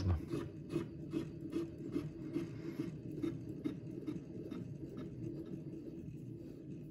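Hand-gripper test rig being cranked up under load, making an even, rhythmic rasping about two to three strokes a second as the cable draws the gripper's spring closed toward its roughly 76 kg closing force.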